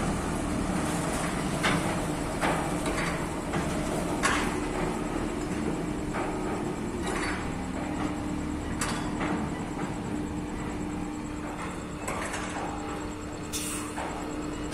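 Ship-to-shore container gantry crane at work: a steady machinery hum with irregular metallic clanks and knocks as a container on the crane's spreader is lowered onto a terminal tractor's trailer.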